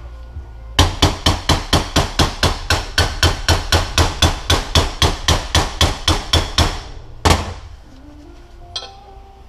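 Hammer tapping fast and evenly on a metal punch, about four strikes a second for some six seconds and then one last blow, driving an old seal out of a Mazdaspeed 6 transfer case.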